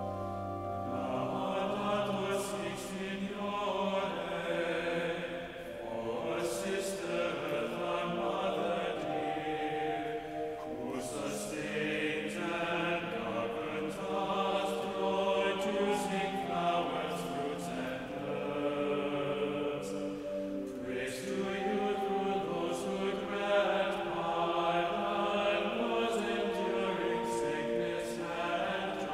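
Mixed choir of women's and men's voices singing together in parts.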